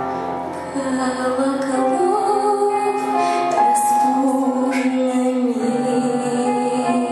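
A woman singing a slow song with instrumental backing, her held notes wavering with vibrato.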